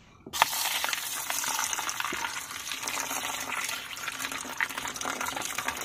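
Water being poured into a cooking pot onto dal, rice and soya chunks to soak them, a steady splashing pour that starts suddenly about a third of a second in.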